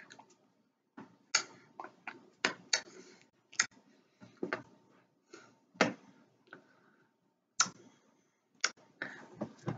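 Hands tapping and slapping against each other while signing, an irregular run of short, sharp clicks and taps with quiet gaps between them.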